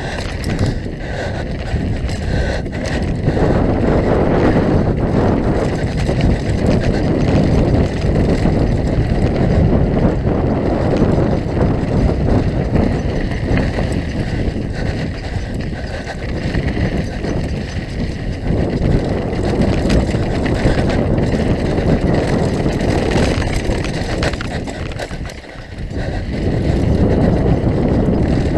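Wind rushing over a helmet-mounted camera's microphone as a downhill mountain bike rides fast over a dirt trail, with tyre noise and the bike rattling over bumps. The rush dips briefly near the end, then picks up again.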